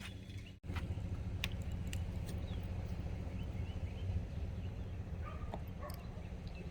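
Steady low hum with a few light clicks and faint short chirps over it, after a momentary cut-out in the audio about half a second in.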